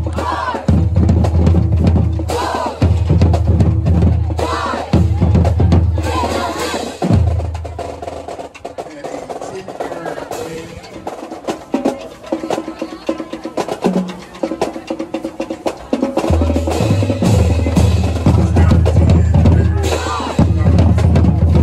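High school marching band playing, with drums and a heavy bass end under pitched horn lines. About a third of the way in, the low drums drop out and the music gets quieter. The full band comes back in about three quarters of the way through.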